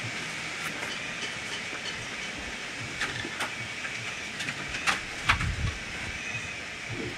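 A few light knocks and clicks as plastic paint buckets and a stir stick are handled while paint is boxed, over a steady outdoor hiss.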